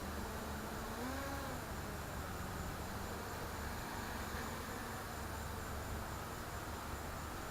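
Sunnysky brushless motors on an FPV quadcopter spinning with a steady buzzing whine, the pitch rising and falling briefly about a second in. The front left motor does not sound happy, a sign of a fault that the owner has not yet identified.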